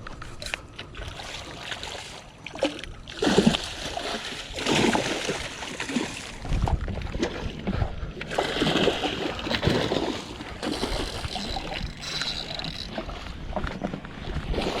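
Water splashing in several irregular bursts as a hooked snook thrashes at the surface during the fight.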